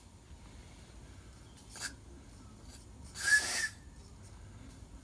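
Steam whistle of a 3.5-inch gauge live-steam model locomotive, a 1:8 scale O&K Feldbahn engine, giving one short blast of about half a second about three seconds in: a rush of steam with a single whistle note. A shorter, fainter hiss comes a little before two seconds.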